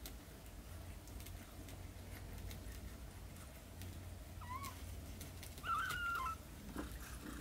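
Newborn kittens mewing: two short, high squeaks about halfway through, then a longer, louder wavering mew a second later, with faint clicks in between as the mother cat licks them.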